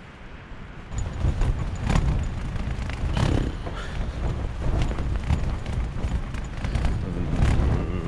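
Strong wind gusts buffeting a Luxe Hexpeak V4A tent, heard from inside: a deep rumble with the tent fabric flapping and rattling. The gusts pick up about a second in.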